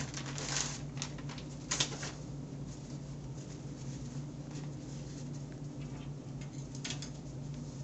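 Rustling and crinkling of a sterile kit's packaging being opened and its blue wrap unfolded, with sharper crackles about half a second in, just under two seconds in and about seven seconds in. A steady low hum runs underneath.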